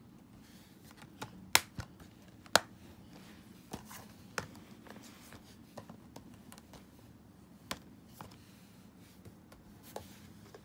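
Plastic Blu-ray cases being handled: scattered sharp clicks and taps, the two loudest about one and a half and two and a half seconds in, then lighter taps now and then.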